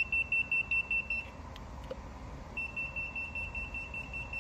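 Digital voltage tester pen beeping in a rapid string of short high-pitched beeps, stopping after about a second and starting again about halfway through. The beeping signals that the probe is touching live mains voltage on the circuit-breaker terminals.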